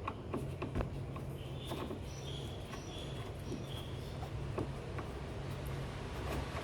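Scattered small clicks and taps of a screwdriver and metal parts as the grounding screw is taken off a window air conditioner's control box, over a steady low hum. A few short high-pitched chirps come in the middle.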